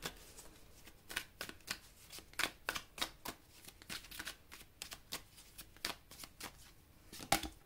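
Deck of tarot cards being shuffled and handled by hand: a faint run of irregular card flicks and taps, a few a second, with a slightly louder snap near the end.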